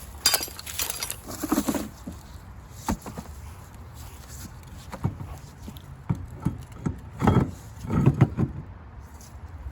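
Irregular clunks and scrapes as a golf cart wheel is set back onto the rear hub, with a louder cluster near the start and another about seven to eight seconds in.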